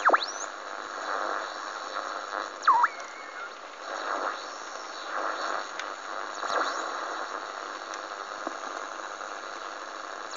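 Homemade super-regenerative radio receiver built around a 2SK192A FET and a BC547 transistor, giving its steady rushing hiss between stations while it is being tuned. Brief whistling squeals sweep down and up in pitch near the start and again about three seconds in.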